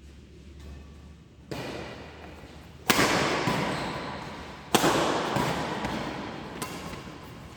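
Three sudden thuds or bangs, the first weaker, about one and a half to two seconds apart, each ringing on and fading slowly in the echo of a large hall.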